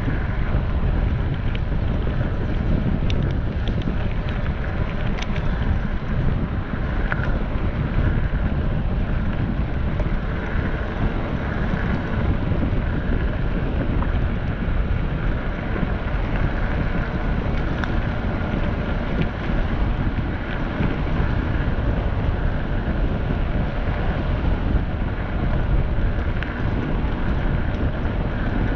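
Steady wind buffeting the microphone over a low rumble, with a few faint clicks.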